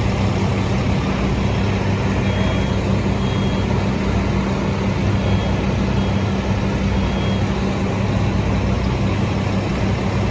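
Fire trucks' diesel engines running steadily: a continuous low drone over a broad rush of noise, with a few faint short high beeps in the middle.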